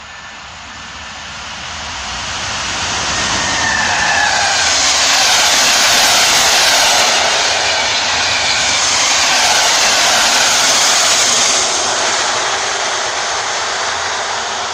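Newag Griffin EU160 electric locomotive and its Intercity coaches passing at speed: the rush of wheels on rail swells as the train approaches, with a whine that drops in pitch as the locomotive goes by. The steady rush of the coaches follows and begins to fade near the end as the train moves away.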